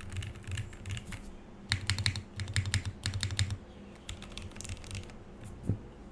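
Typing on a full-size LZ Stan mechanical keyboard with lubed and filmed vintage Cherry MX Black linear switches, a plastic plate and GMK keycaps: quick runs of keystrokes with pauses, each with a bassy table thud under the click. The typing thins out, and one low thump comes near the end.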